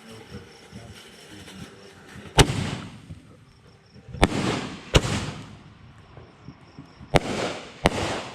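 Consumer fireworks going off: five sharp bangs at uneven intervals, several followed by a fading crackle.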